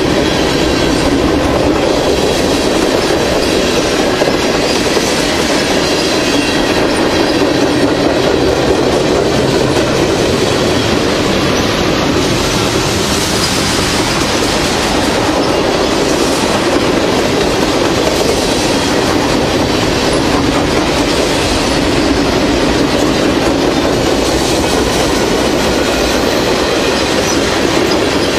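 Freight train of covered hoppers and tank cars rolling past close by, a loud, steady rumble of steel wheels on the rails with clacking over the rail joints.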